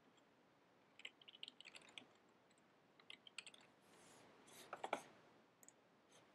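Faint typing on a computer keyboard: short runs of keystroke clicks, with a slightly louder cluster of clicks near the end.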